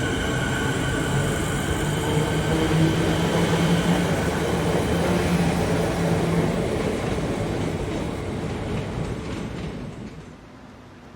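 Train running on the track, loud, with a high steady whine that fades over the first few seconds; the sound drops away sharply about ten seconds in as the train moves off.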